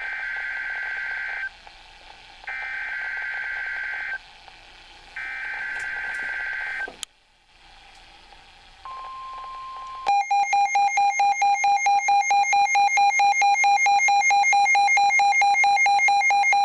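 Emergency Alert System weather-radio alert signal. Three harsh, chirping SAME digital header bursts come first. After a short pause a steady alert tone starts, and about a second later a loud, rapidly pulsing electronic beep takes over, signalling that a new warning is coming.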